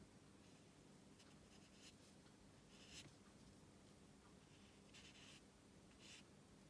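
Faint soft swishes of a watercolour brush stroking across paper: several short strokes about a second apart, in near silence.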